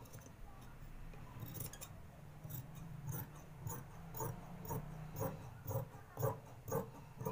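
Large dressmaking shears cutting through grey tracksuit knit fabric, the blades snipping in a steady run of cuts about two a second that starts about two and a half seconds in and gets louder toward the end.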